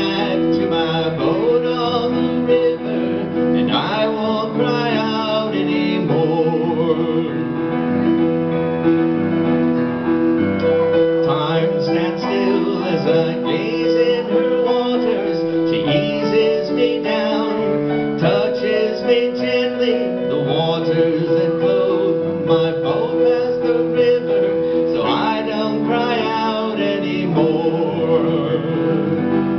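Instrumental music from a live song performance: sustained keyboard chords with a melody line over them, changing every few seconds.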